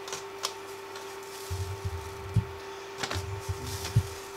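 A spoon adding sugar to a steel pot of water: a few light clicks and soft knocks, over the steady hum of a running induction cooker.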